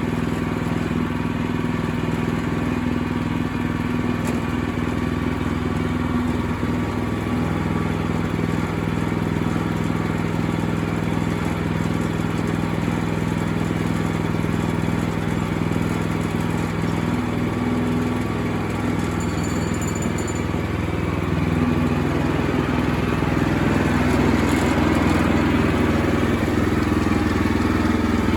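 Sawmill engine running steadily at speed, with a steady low hum. About 22 s in it grows louder and rougher, as when the blade is working.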